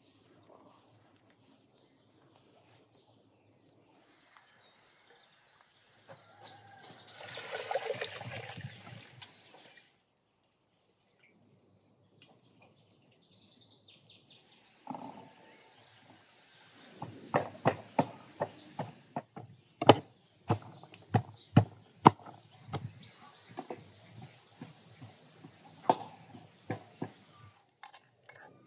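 Outdoor kitchen work: a brief rush of noise swells and fades about eight seconds in. Later, a run of sharp, irregular knocks and taps of utensils against bowls and boards fills the last ten seconds or so, as ingredients are worked and scraped out with a spoon.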